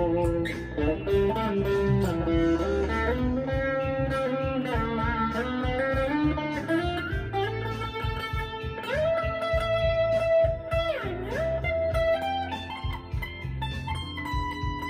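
Electric guitar playing a lead line over a backing track with drums and bass. About nine seconds in, a note is bent up, held, and released about two seconds later.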